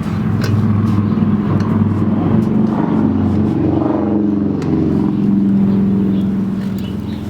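A motor vehicle engine running close by, its pitch rising and falling through the middle, loud throughout and easing off near the end.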